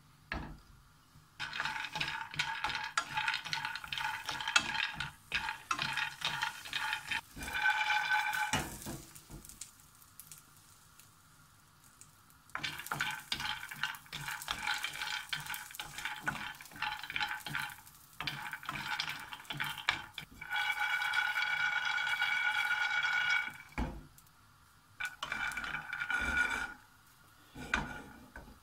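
Almonds and hazelnuts being toasted in a nonstick frying pan on a gas burner, stirred with a wooden spatula: nuts rattling and scraping against the pan, which gives a ringing metallic tone. It comes in several bursts of a few seconds each, with short pauses between.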